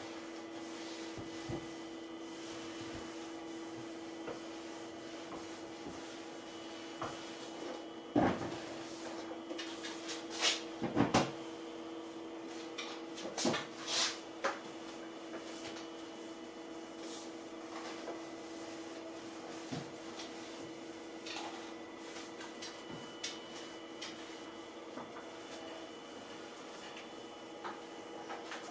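A flat mop on a long pole wiping kitchen cabinet doors, its head knocking and rubbing against the wooden cabinets several times, mostly in the middle stretch. A steady hum runs underneath.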